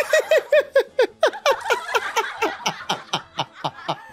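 A young woman laughing hard: a rapid string of high-pitched 'ha' bursts, about four or five a second, each sliding down in pitch.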